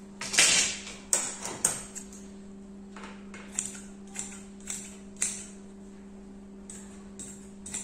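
A string of light knocks and clicks, about ten spread irregularly over several seconds and loudest near the start, as a wooden ruler and pencil are set down on a marble tabletop and the wool cloth is handled, over a steady low hum.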